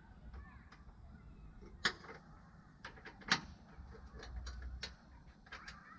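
Irregular metallic clicks and clinks of hand tools and brake parts as a blade brake is fitted back onto a Craftsman T240 mower deck. Two sharper knocks stand out, about two and three seconds in, with a run of lighter ticks near the end.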